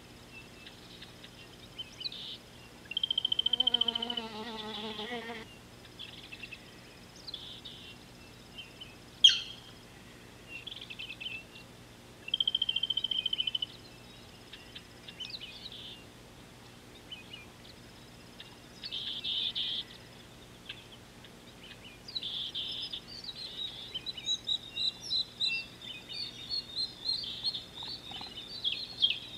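Wild birds calling: several buzzy trills of about a second and a half each, a quavering lower call about four seconds in, and a quickening run of rapid chirps in the last seven seconds. A single sharp click about nine seconds in, over a faint steady hum.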